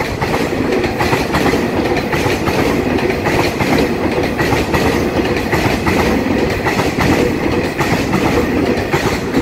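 Taiwan Railway EMU3000 twelve-car electric multiple unit passing close by: steady rolling noise of its wheels on the rails, with rapid irregular clicks running through it.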